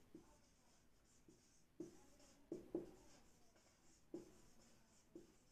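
Marker pen writing on a whiteboard: faint scratchy strokes with a few light taps as each letter is formed.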